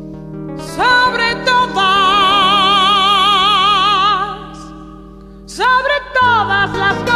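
Music: long held notes with wide vibrato over a steady low accompaniment, coming in about a second in and fading a little past the middle. A new phrase starts near the end.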